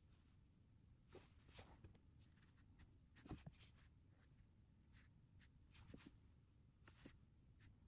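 Faint paintbrush strokes on watercolor paper: a dozen or so short, scratchy swishes and taps at irregular intervals, the firmest about three seconds in.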